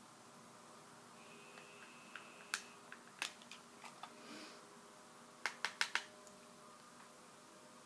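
Small hard clicks and taps of makeup items handled on a desk, such as a compact being shut: a few scattered clicks, then four quick clicks in a row about five and a half seconds in.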